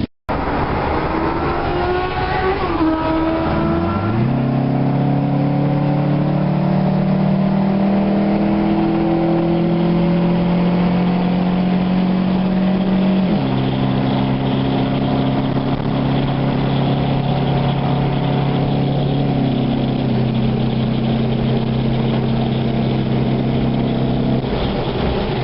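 2004 Suzuki GSX-R600's inline-four engine running while riding. Its pitch shifts over the first few seconds, then holds a steady note, stepping slightly lower about 13 seconds in.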